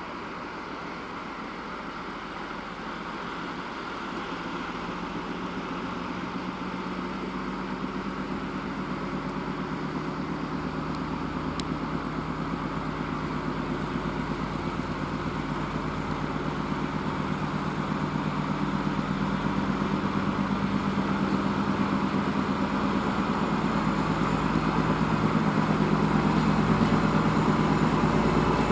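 Two-section 2M62 diesel locomotive's two-stroke 14D40 engines working under load as it pulls a passenger train away from a stop: a steady low engine drone that grows steadily louder as the locomotive draws near.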